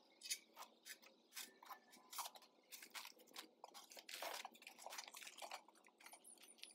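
Faint, irregular clicks and light knocks of stainless-steel grill parts and a wire rack being fitted together. Then comes the rustle of a fabric carrying case being handled, with a short scratchy burst of noise about four seconds in.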